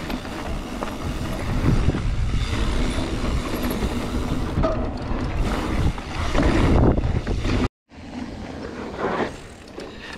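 Mountain bike riding a trail: wind rumbling on the microphone over tyre noise, with scattered knocks and rattles from the bike. The sound drops out completely for a split second about three-quarters of the way through.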